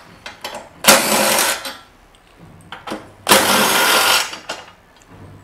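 Cordless impact driver spinning hex bolts out, in two short runs of about a second each: one about a second in, the other just past three seconds.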